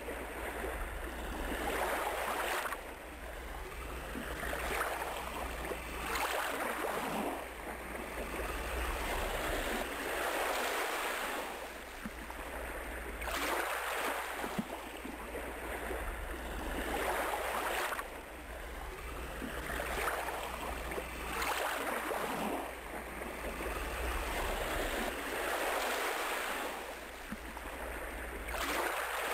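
Ocean surf: waves breaking and washing up a shore, a noisy rush that swells and falls back every two to four seconds.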